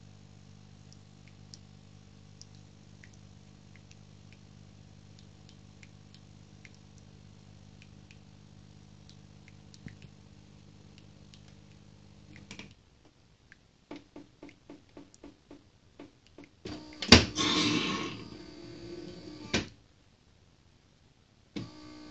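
Philips bean-to-cup espresso machine running with a steady hum while coffee drips into the cup, until the hum stops suddenly a little over halfway through. Then comes a run of mechanical clicks, a loud stretch of machine noise about three seconds long, and a shorter burst near the end.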